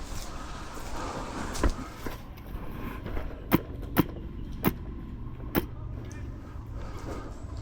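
Airsoft rifle firing single shots: five sharp cracks at uneven intervals, two of them close together about halfway through.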